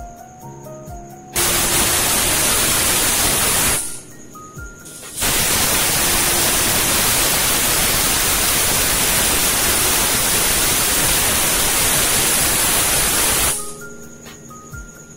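Pressure cooker whistle: steam forced out under the weight valve in a loud hiss. One blast of about two seconds, then after a short break a longer one of about eight seconds, the sign that the cooker has come up to pressure. Background music with a simple melody plays in the gaps.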